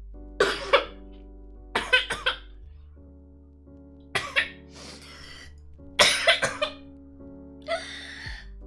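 A girl in a coughing fit: bursts of two or three harsh coughs about every two seconds, the last ending in a longer noisy breath.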